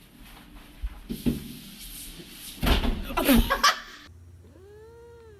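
Knocks and a clatter, then a loud cry falling in pitch about halfway through, and near the end a single drawn-out meow from a cat, rising and then falling in pitch.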